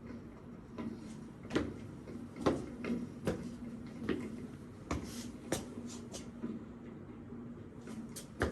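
Irregular knocks and clicks, about one or two a second, over a steady low hum.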